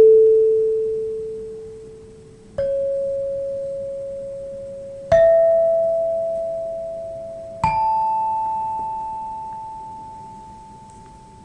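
A set of bar chimes struck one bar at a time: four clear, pure-toned notes stepping up in pitch, about two and a half seconds apart, each ringing on and slowly fading.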